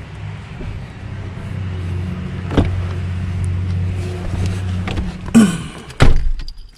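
Doors of a Kia Sorento SUV: a sharp latch click about two and a half seconds in, then two loud thumps near the end as a door swings and shuts, after which it goes quiet. Before the thumps a steady low hum runs, growing louder.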